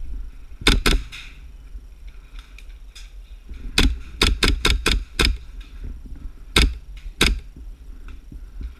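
Airsoft MP7 gas-blowback gun firing sharp single shots: a pair about a second in, a quick string of about six in the middle, then two more spaced shots.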